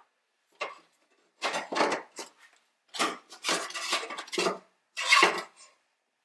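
Honda Accord's sheet-metal fuel pump access plate being lifted off the trunk floor and set down: a light click, then several bouts of metallic clinking and scraping.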